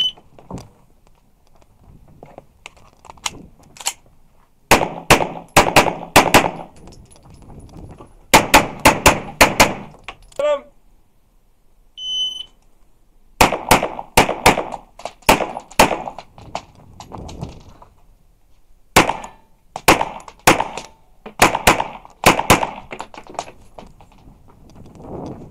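Handgun shots fired in fast strings of pairs, each shot a sharp crack echoing off the concrete walls of an indoor range. About twelve seconds in, a shot timer's electronic start beep sounds, and the firing resumes in more fast strings.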